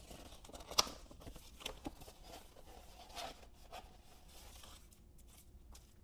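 Faint rustling and crinkling of a package being opened by hand, with a sharp tick a little under a second in and a few smaller ticks after it.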